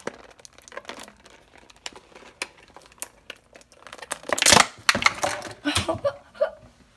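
Clear plastic packaging crinkling as hands pull it open: scattered crackles, then a louder burst of crinkling about four and a half seconds in and more in the next second or two.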